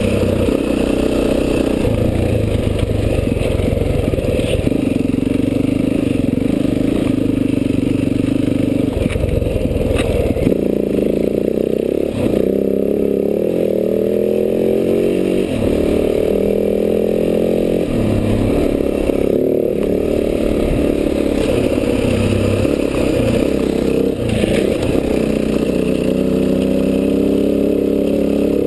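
Enduro dirt bike engine running hard, its pitch climbing and dropping again and again as the rider accelerates and shifts gears, with a few sharp knocks from the bike over rough ground.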